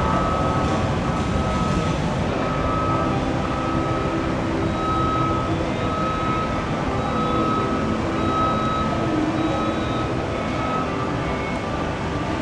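Steady street traffic and city noise, with a faint high tone that comes and goes about once a second.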